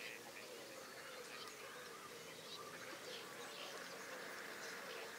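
Faint chorus of geese and ducks calling, mostly Canada and greylag geese, as many short overlapping calls. Under it runs a steady background hum of distant road noise.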